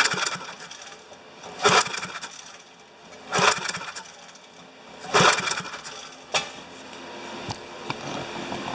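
Recoil starter rope pulled on a 1969 Briggs & Stratton 4 HP engine, cranking it over for a compression test: four sharp pulls about every second and a half to two seconds, then a weaker one. The engine has low compression, which the owner puts down to valves sunk into their seats.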